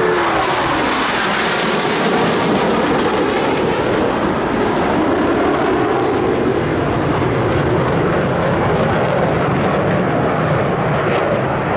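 Loud, steady jet noise from Blue Angels F/A-18 Hornet fighter jets flying past. A whine drops in pitch right at the start as a jet passes.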